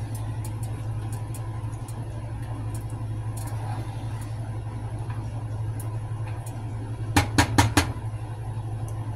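A steady low hum, with four quick clinks of a metal utensil against a cooking pot about seven seconds in.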